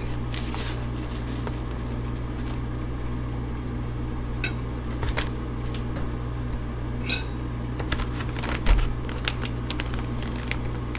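Crappie fillets being dropped into a plastic zip-top bag of flour-and-cornmeal breading, then the bag pressed and zipped shut: crinkles and small clicks, busiest near the end. Two light clinks come about four and seven seconds in, over a steady low hum from a kitchen appliance.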